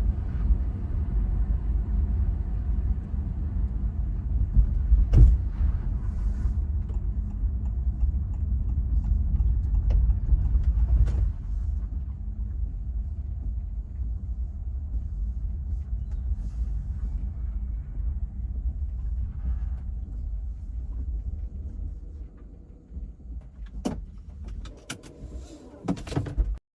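Road rumble inside a Honda ZR-V's cabin while driving, with a few sharp taps from the rear: the intermittent knocking the owner puts down to poor fit of the rear trim. The rumble dies down near the end, and several taps come close together just before it stops.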